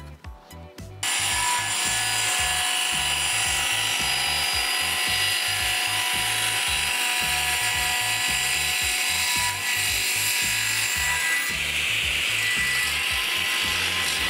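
Table saw cutting lengthwise through a solid-wood tabletop: a loud, steady cutting noise with a faint whine that starts suddenly about a second in and holds level. Background music with a steady beat plays underneath.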